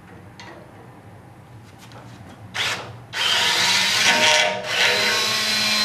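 Cordless drill boring mounting holes for a new radiator: a short burst about two and a half seconds in, then the drill runs under load, easing off briefly about halfway through the cut before running on.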